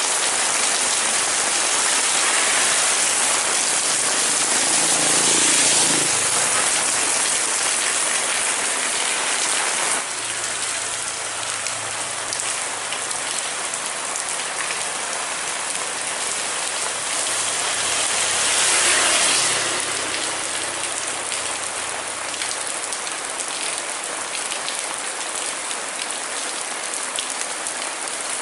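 Heavy rain pouring down steadily, a dense hiss that swells briefly twice.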